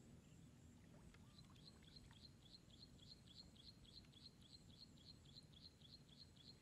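Near silence, with a faint bird chirp repeated in a steady series of about four short high notes a second, starting about a second in, over low background noise.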